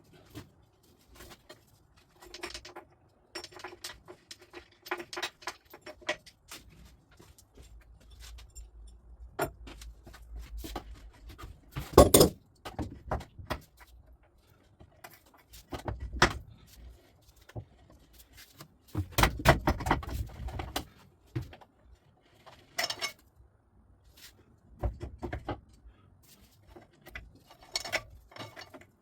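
Hand tools and metal motorcycle parts clinking, clicking and knocking during dismantling work, in irregular bursts, with louder knocks about twelve seconds in and again near the middle.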